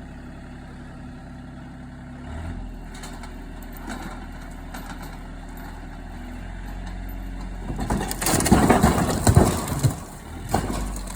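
Backhoe engine running and revving up about two seconds in, then a loud crunching and crashing for about two seconds near the end as the bucket smashes into the greenhouse wall, with a few smaller knocks after.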